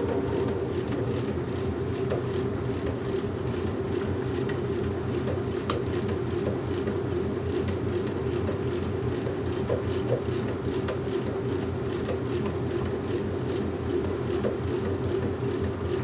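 Washing machine running: a steady motor hum and drum rumble, with faint regular ticking over it.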